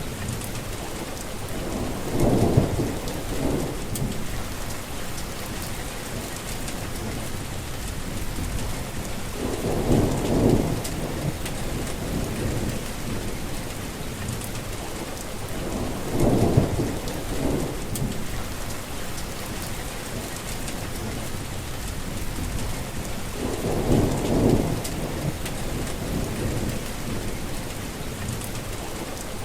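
Heavy rain pouring steadily, with four low rumbles of thunder that swell and fade about seven seconds apart.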